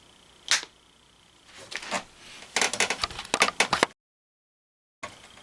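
A single sharp click, then a quick run of crackling plastic packaging as the film lid of a microwave rice cup is pulled back. It cuts off abruptly into a second of dead silence.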